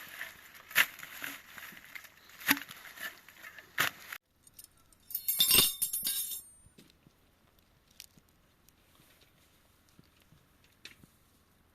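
A run of sharp clinks and knocks, then a dense jangling clatter lasting about a second and a half, about five seconds in. After that it falls to near quiet with only a few faint ticks.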